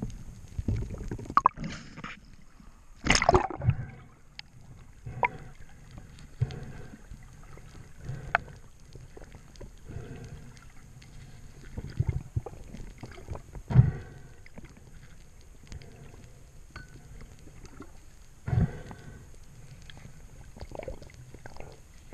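Water sloshing and splashing close to the microphone, with irregular louder splashes over a low churning rumble.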